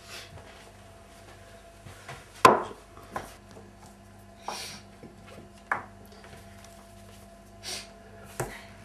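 Breakfast-table clatter: a butter knife and crockery knocking and scraping on a plate and the tabletop, a few separate sharp knocks with the loudest about two and a half seconds in, and a newspaper rustling now and then.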